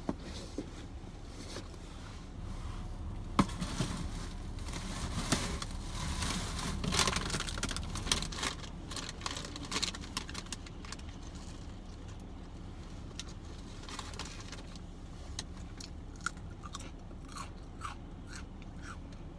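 Close-up chewing and biting of a sandwich on a Kaiser roll, with many small wet clicks of the mouth; the chewing is busiest in the first half and thins to a few scattered clicks near the end.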